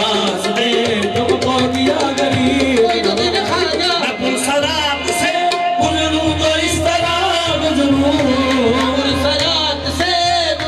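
Qawwali music: voices singing over harmonium, with a steady tabla beat.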